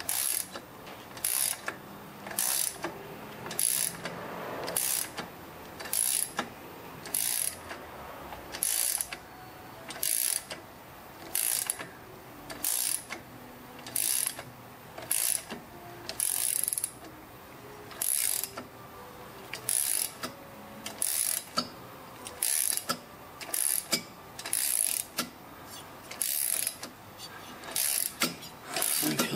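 Ratchet wrench clicking as it turns a thread tap by hand into an aluminium BMW motorcycle cylinder head to cut a spark plug thread: a short run of clicks on each back-stroke, repeating a little less than once a second.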